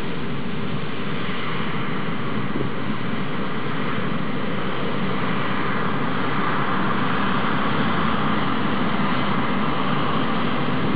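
Combine harvester running steadily while harvesting wheat.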